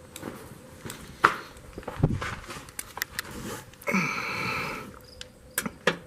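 Hand tools clicking and knocking on the fasteners of a cover under a car, with a short buzzing whir about four seconds in.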